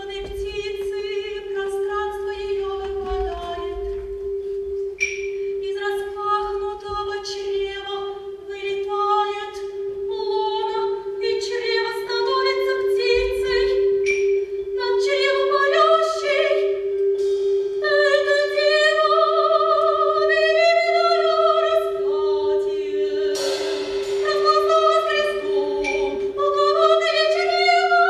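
A woman singing slow phrases with vibrato over one steady held note, with a percussion ensemble of marimbas; the singing grows louder and climbs higher from about ten seconds in.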